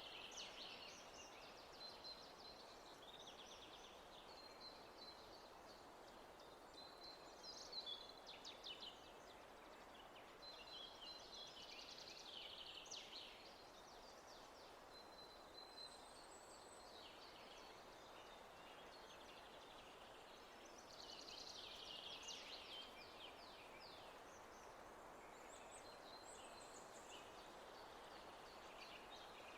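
Faint birdsong: scattered chirps, trills and short repeated high notes from several small birds, over a soft steady hiss of natural background noise.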